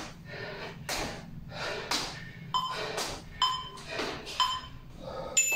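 Rhythmic hard breathing from an exerciser doing plie squat hops, about two breaths a second. Three short timer beeps sound a little past halfway through, and a higher beep near the end marks the end of the work interval.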